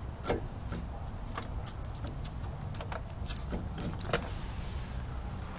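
Scattered light clicks and taps of hands fitting a foam gasket onto a steel drum-brake backing plate at the axle flange, with a sharper knock about a third of a second in and another about four seconds in, over a steady low background hum.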